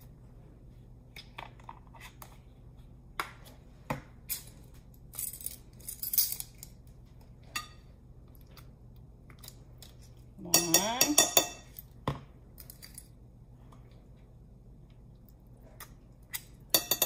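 Horseradish squeeze bottle and metal measuring spoon being handled over a glass bowl: scattered soft clicks and plastic handling, a louder sputtering burst about ten seconds in, and a quick run of metal clinks near the end.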